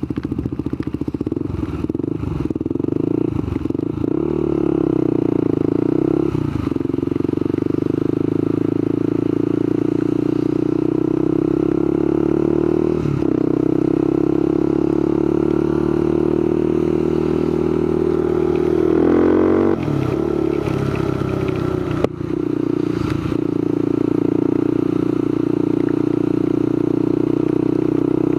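Motorcycle engine running under way, heard from the rider's helmet, with the revs rising and then dipping briefly several times as the gears change.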